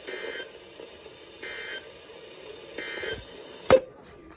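NOAA Weather Radio sending three short buzzy data bursts about a second and a half apart: the SAME end-of-message code that closes the weekly test broadcast. A single sharp, loud click comes near the end.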